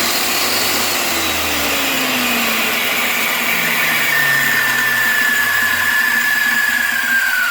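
Old US-made Milwaukee 13-amp, 5800 RPM corded circular saw running free at full speed with no cut; a loud, steady motor and blade noise with a high whine.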